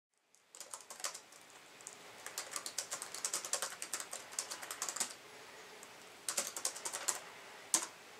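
Typing on a laptop keyboard: quick runs of key clicks, a pause of about a second, another short burst, then one single sharper keystroke near the end.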